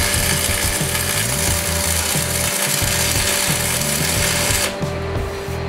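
Arc welder crackling steadily while laying a bead on a steel mower steering spindle, stopping suddenly about three-quarters of the way through.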